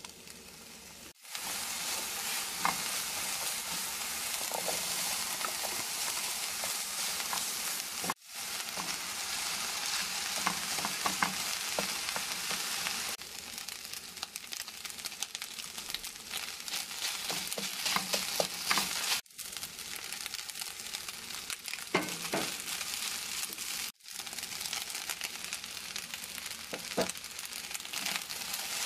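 Fried-rice ingredients (vegetables, diced ham, rice, egg and pineapple) sizzling in hot oil in a frying pan while being stir-fried, with short scrapes and taps of the spatula against the pan. The sizzle breaks off abruptly and resumes about four times.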